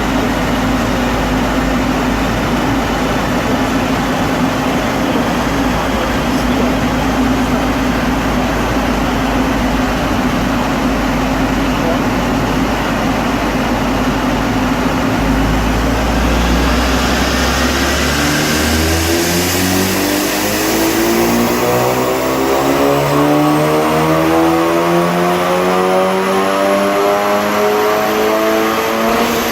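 Tuned Audi S1's turbocharged 2.0-litre four-cylinder engine on a rolling road. For about half the time it runs steadily under load at a fixed note, then a full-throttle pull starts, with the engine note climbing steadily and a turbo whistle rising high above it. The pull ends near the very end.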